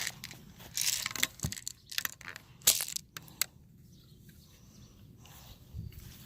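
Irregular crunching and rustling with several sharp clicks, the loudest about two and a half seconds in; the noise dies down after about three and a half seconds.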